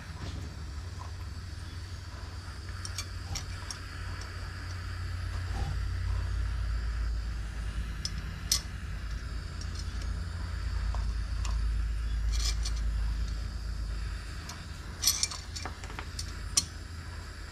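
A low steady rumble that swells through the middle, with scattered small metallic clicks and clinks as a battery cable lug held in pliers is heated and fed with solder.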